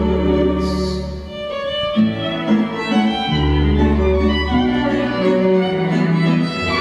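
Instrumental waltz interlude from a small string ensemble: a violin carries the melody over cello and guitar, with long held double bass notes underneath.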